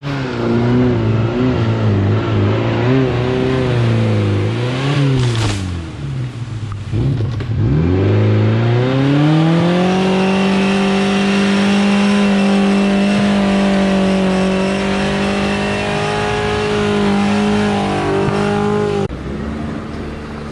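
Off-road vehicle's engine revving: the pitch rises and falls a few times, sinks low about six to seven seconds in, then climbs to high revs and holds there steadily before dropping off near the end.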